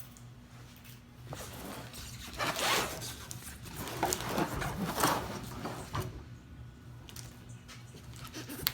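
Cardboard shipping box being torn open by hand: a few ripping, zipper-like strokes, the loudest about two and a half seconds in and again between four and five seconds in, with rustling of cardboard between them.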